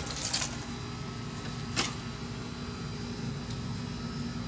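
Steady low hum, like a running motor or air-conditioning unit, with a couple of short handling or rustling noises at the start and about two seconds in.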